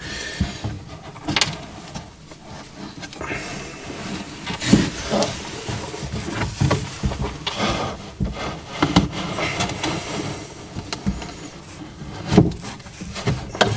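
Handling noises as a plastic tub of drained water is eased out from under cut copper pipes: scattered knocks and clunks with scraping and rubbing in between.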